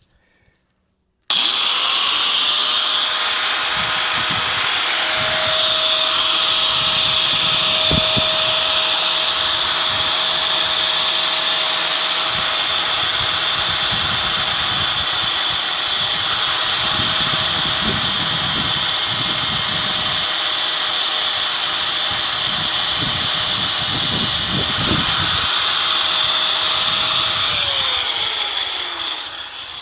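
A power cutting tool starts abruptly about a second in and runs steadily while cutting the parking-brake cable, then winds down with a falling pitch near the end.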